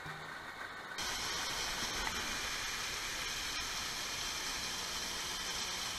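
Steady rush of a waterfall, cutting in abruptly about a second in after a faint tail of music.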